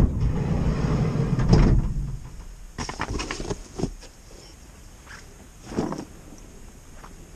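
A loud low rumble for the first two seconds, then a few separate knocks and rattles as fishing tackle is lifted out through a van's open sliding side door.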